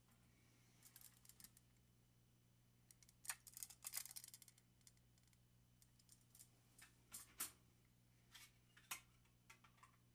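Small plastic cases and packaging being handled: faint scattered clicks and rustles, with a denser run of them about three to four seconds in and a few sharper clicks later on.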